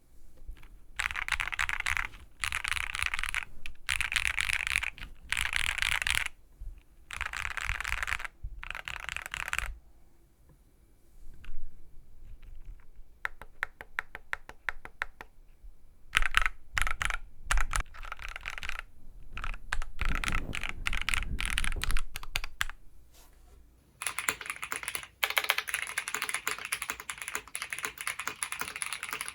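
Typing on a Keychron Q6 Max mechanical keyboard with factory-lubed Gateron Jupiter Red linear switches, PBT OSA keycaps and a polycarbonate plate: bursts of fast keypresses with short pauses, and a few scattered single keypresses about ten seconds in. The uploader finds the switches higher-pitched and the stabilizers worse than when new, with the factory lube wearing off. Near the end the typing turns thinner and brighter, recorded through a phone microphone.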